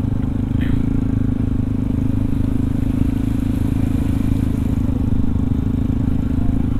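Yamaha WR155R's single-cylinder four-stroke engine running steadily at low speed while riding.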